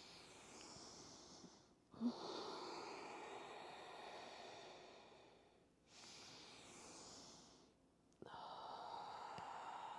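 A person breathing slowly and audibly in and out through the nose, four soft breaths with short pauses between them, in time with a yoga moving-bridge movement.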